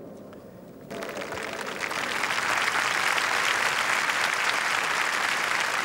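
Large crowd applauding. The clapping starts about a second in, swells and settles into a steady roar of hand claps.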